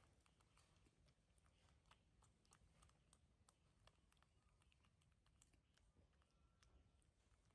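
Faint, irregular small clicks and smacks of baby monkeys chewing and mouthing pieces of fruit.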